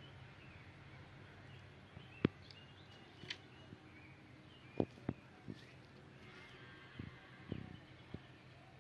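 Faint outdoor ambience with small birds chirping in the background and several short, sharp clicks scattered through it, the loudest about two seconds in and twice close together near five seconds.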